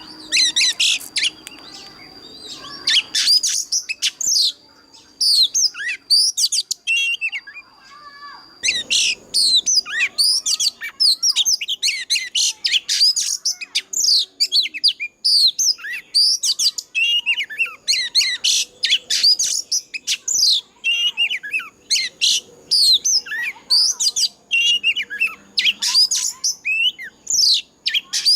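Oriental magpie-robin singing a fast, varied song of high whistles and sweeping notes, the full 'forest voice' of a mature wild bird. A steady high tone runs beneath the song for the first eight seconds, then the song pauses briefly and resumes denser.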